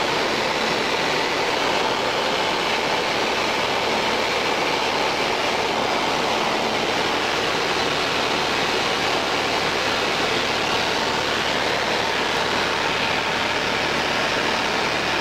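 Small propeller plane's engine and airflow heard inside the cabin in flight: a loud, even drone that holds steady throughout.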